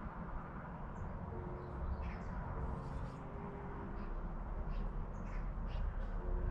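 Small birds chirping in the background, a scatter of short high calls, over a steady low background rumble.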